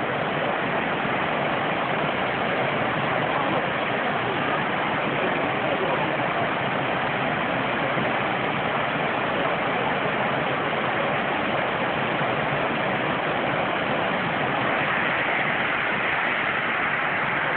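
Waterfall: falling water making a steady, even rush of noise that doesn't change.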